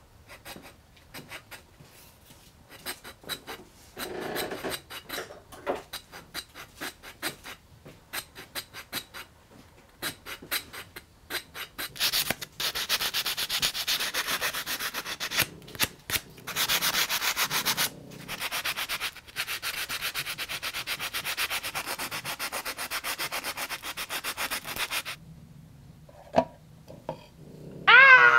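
Hand work on a walnut spoon: short, separate scraping strokes of a carving tool on the wood for the first ten seconds or so, then about thirteen seconds of sandpaper rubbed rapidly back and forth over the spoon, stopping about 25 seconds in.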